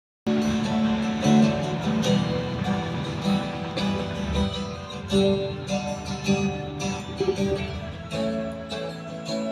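Acoustic guitar strumming an instrumental intro with other instruments, starting suddenly a moment in.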